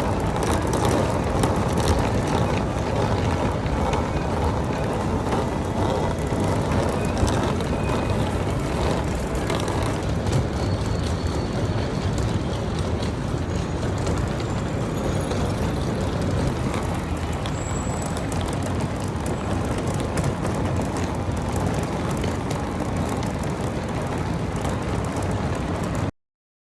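Steady rumble of a moving road vehicle or traffic, strongest in the low end, cutting off abruptly near the end.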